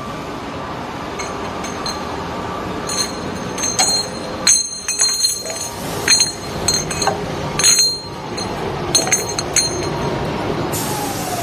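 Finished metal pipes from a CNC double-end chamfering machine clinking and ringing against one another as they come down into a pile, a run of sharp metallic clinks over several seconds. The machine keeps running steadily underneath, with a falling whine near the end.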